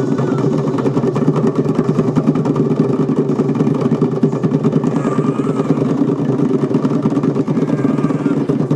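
A fast, continuous drumroll on djembe hand drums, many rapid even beats a second, the drumroll for a strongman lift.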